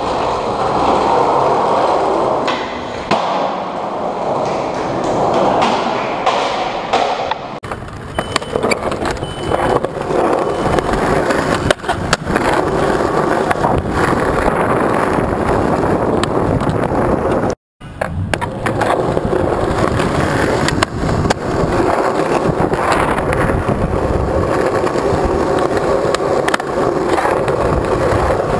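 Skateboard wheels rolling over pavement and asphalt, with sharp clacks of the board popping and landing now and then, and a brief dropout between clips in the middle.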